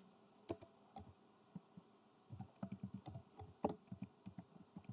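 Faint typing on a computer keyboard: a few scattered keystrokes, then a quicker run of them from about two seconds in.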